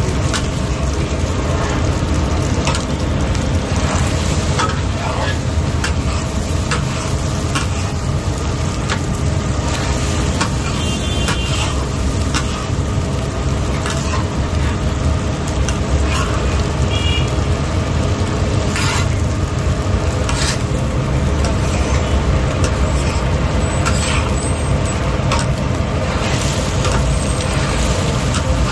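Chapli kababs sizzling as they fry in hot fat, over a steady low rumble of street noise, with occasional clicks and clinks.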